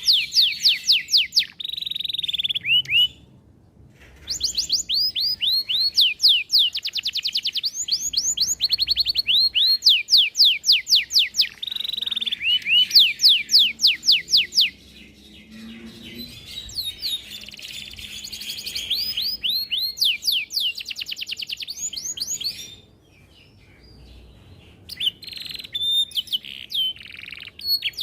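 Domestic canary singing a long rolling song: rapid trills of repeated down-sweeping whistled notes strung into phrases, with a softer stretch in the middle. The song breaks off briefly about three seconds in and again near the end.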